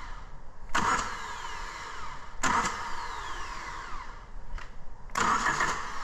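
Starter motor of a 2005 Toyota Matrix 1.8L cranking the four-cylinder engine in three short bursts, each fading away with a falling whine. The starter is powered straight from battery positive through a jumper wire on its solenoid terminal, with the key off, so the engine turns over without firing. This shows the starter and its main cable are good and the engine is not seized.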